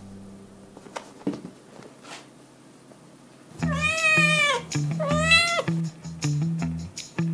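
A young tabby kitten meows twice a little past the middle, two drawn-out calls that rise then fall in pitch. Background music with a stepping bass line comes in alongside them.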